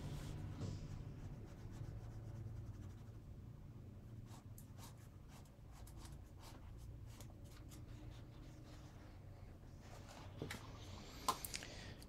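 Fine paintbrush dabbing and stroking watercolor onto semi-gloss card stock: faint, light scratchy taps over a low room hum, with a sharper click near the end.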